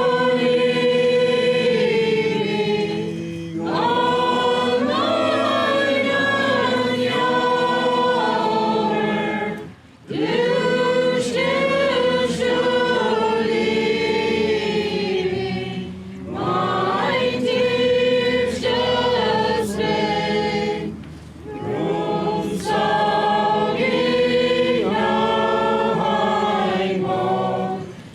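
A choir of mixed voices singing a hymn, holding long notes in phrases with short breaks between them, about ten, sixteen and twenty-one seconds in.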